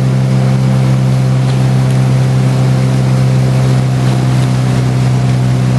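Motorboat engine running steadily at a constant speed, a loud, even drone over a steady hiss of water and wind.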